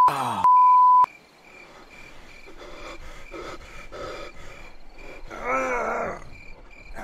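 A censor bleep, one steady high beep, sounds for about the first second. A man's pained groans follow, the loudest near the end, over a faint steady chirping of crickets.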